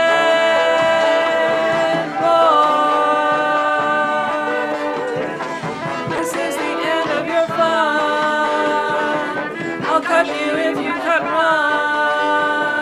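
Brass marching band music: long held chords that change every few seconds.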